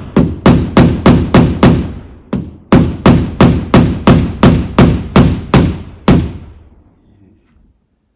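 Hammer driving nails into the wooden fly rafter at the gable peak. Sharp blows about three a second, a brief pause about two seconds in, then about a dozen more, stopping about six seconds in.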